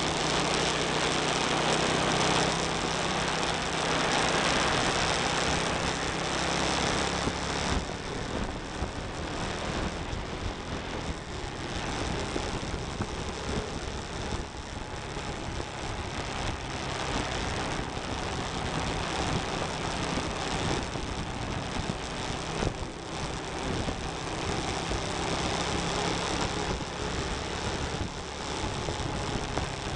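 Motorcycle engine running at riding speed under steady wind and road noise on the helmet or bike microphone. The engine note and the overall level ease a little about eight seconds in.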